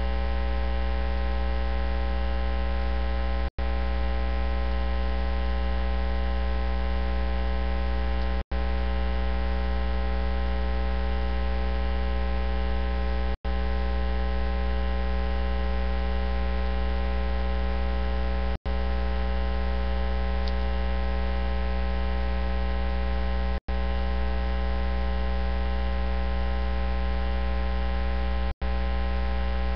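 Steady electrical mains hum with many overtones, broken by brief dropouts to silence about every five seconds.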